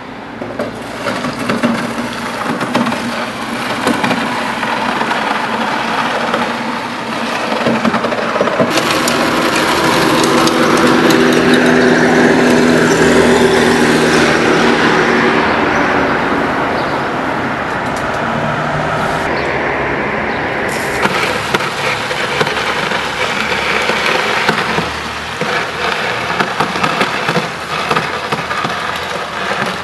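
Street traffic noise: a motor vehicle's engine swells and fades in the middle as it passes. Short knocks and scrapes stand out near the start and near the end.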